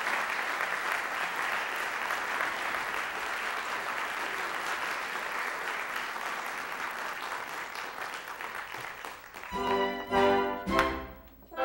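Audience applauding steadily, fading slightly, then the orchestra comes in with loud sustained chords about nine and a half seconds in.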